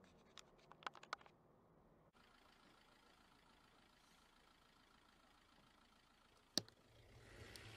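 Near silence with a faint hiss. A few soft clicks come in the first second or so, and one sharp click about six and a half seconds in. A hiss rises near the end.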